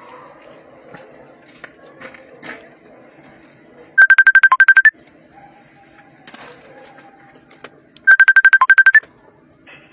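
Telephone ringing: two loud trilling rings about four seconds apart. Each is about a second of rapid pulsing on one high tone, over a faint steady low hum.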